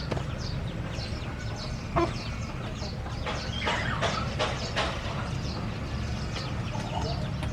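Chickens clucking and calling in short, scattered calls, busiest in the middle of the stretch, over a steady low rumble.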